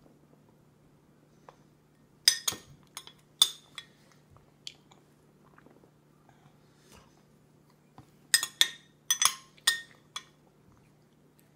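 Metal spoon clinking and scraping against a glass food container: a few sharp clinks about two to three seconds in, then a quick run of them near the end.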